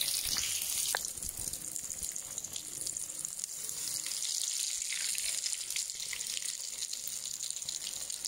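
Breaded mac and cheese balls deep-frying in hot coconut oil in a kadai: a steady high sizzle with fine crackling, and a short tap about a second in.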